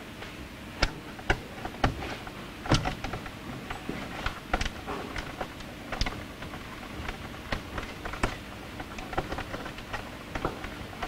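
Irregular clicks, taps and rustles of cables and plastic connectors being handled and fitted at a hot tub's control board, as the heater wiring is reconnected.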